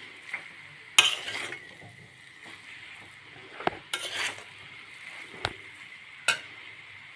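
Spoon stirring and scraping spiced potato samosa filling in a pan, in a few separate strokes with an occasional sharp knock, over a faint steady sizzle.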